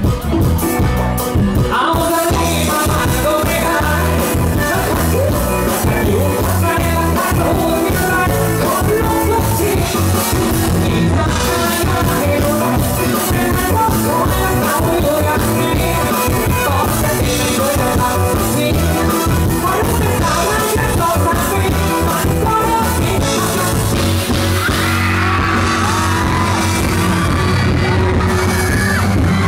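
A live band playing a song loud through a stage sound system, with singing over a steady rhythm section.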